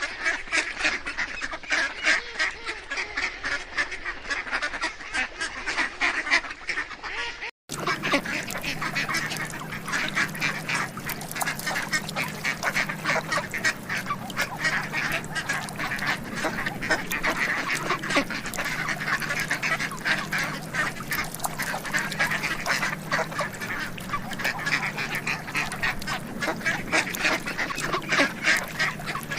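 Many birds calling densely at once, in two recordings joined by an abrupt cut about seven and a half seconds in. The second recording has a steady low hum beneath the calls.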